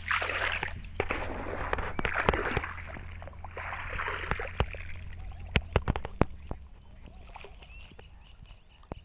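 Floodwater sloshing and splashing as cut soybean plants are lifted out of it by hand, in a few bursts over the first half, with scattered sharp clicks. A steady low hum stops about two-thirds of the way through.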